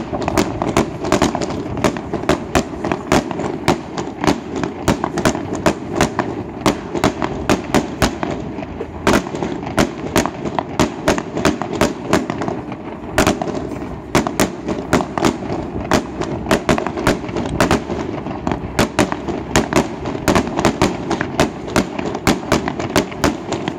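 Fireworks display: aerial shells bursting in a rapid, unbroken string of bangs, about two a second.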